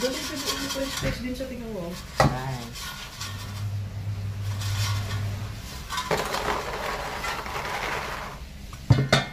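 Air fryer basket handled as cooked French fries are tipped out of it into a plastic tray. A sharp knock comes about two seconds in. Later there is a long stretch of rustling and scraping as the fries slide out, then two quick clacks near the end as the basket is set back in the drawer.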